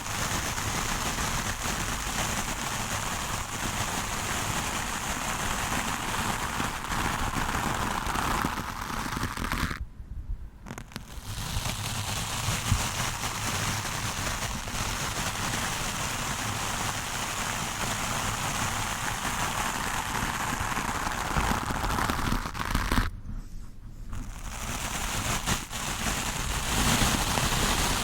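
Stiff-bristled wooden brush scrubbed hard and continuously over a microphone, a dense scratching noise that stops briefly twice.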